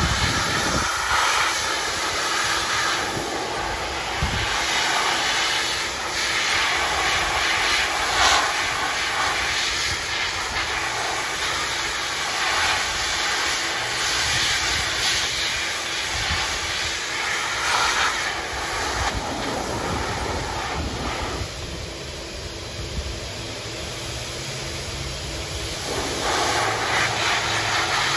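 A K-9 II high-velocity dog dryer blasting air through its hose nozzle into a Samoyed puppy's thick coat: a loud, steady rushing hiss that shifts in tone as the nozzle moves. The hiss thins for a few seconds past the middle, then comes back strong.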